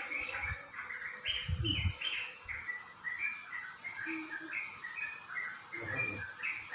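A small bird chirping steadily in a quick run of short, high notes, several a second, with a couple of dull low thuds underneath.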